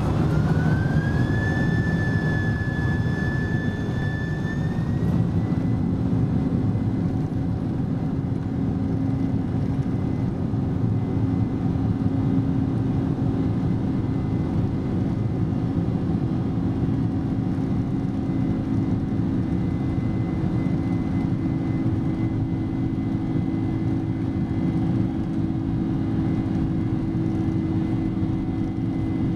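A Boeing 747-400's General Electric turbofan engines spooling up for takeoff, heard from inside the cabin. A high whine rises in pitch over the first couple of seconds, holds, then climbs again about five seconds in and fades. After that a steady roar with a low hum continues as the jet accelerates down the runway.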